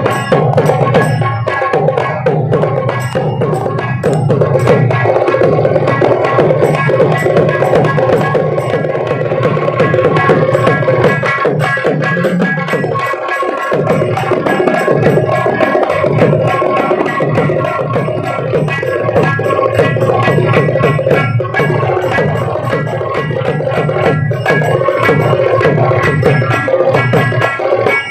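Magudam frame drums of Kaniyan Koothu folk music playing a fast, dense rhythm of rapid strokes over a deep drum tone. There is a brief break in the low tone about halfway through.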